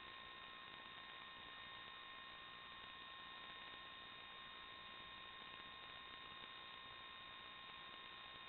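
Near silence: a faint steady electronic hiss with a few thin, steady high whine tones, unchanging throughout. This is the empty audio channel of an analog FPV video receiver or recorder, which carries no propeller or motor sound.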